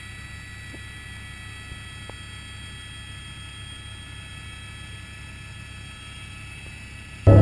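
Steady drone of a helicopter in flight, heard from inside its cabin.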